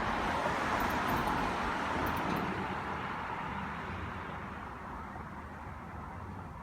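Road vehicle passing on the street: tyre and engine noise that is loudest in the first couple of seconds, then fades away as it moves off.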